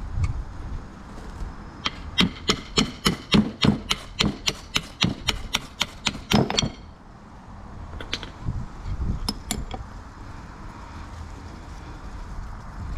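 Hammer blows on metal during a UTV axle CV-joint rebuild: a quick run of about fifteen ringing strikes, roughly three or four a second, then a few single knocks.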